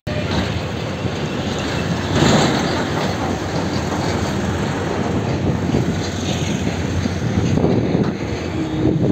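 Loud, steady outdoor rumble of wind on the microphone mixed with road traffic, heard from a road overbridge.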